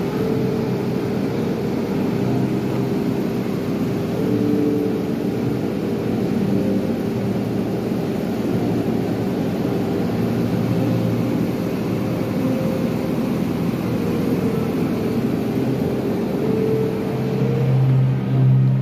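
Steady background rumble and hum, with a few held tones drifting in and out, swelling briefly just before the end.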